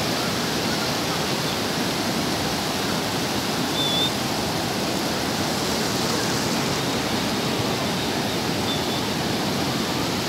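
Sea surf breaking on a beach, heard as a steady, even rush of waves. A brief faint high chirp comes about four seconds in.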